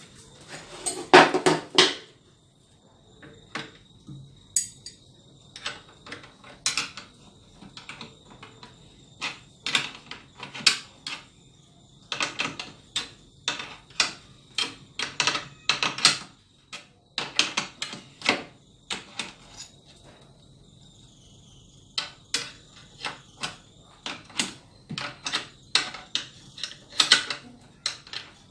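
Metal wrenches clinking and clicking against a bolt and nut as they are tightened at the joint of a wooden arm: bursts of short sharp clinks, loudest about a second in. A steady faint high trill runs underneath.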